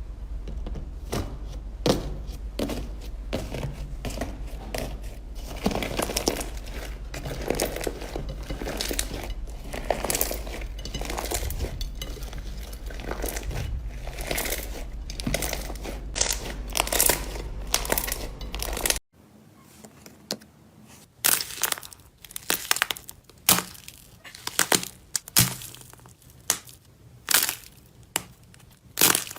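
Slime being squeezed, poked and stretched by hand: a dense run of crinkly crackling and sticky popping. About two-thirds of the way through, the sound cuts to a quieter stretch of separate sharp pops and crackles, roughly one a second.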